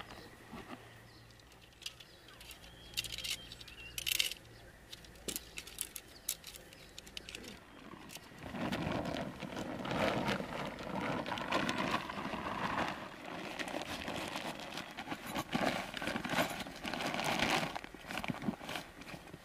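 Nylon tent fabric rustling and crinkling as a tent is folded and rolled up, dense and continuous from about eight seconds in. Before that there are only scattered light clicks and taps from the tent gear being handled.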